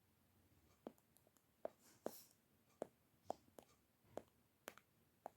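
About nine faint, short clicks at uneven intervals, roughly one or two a second, over near silence.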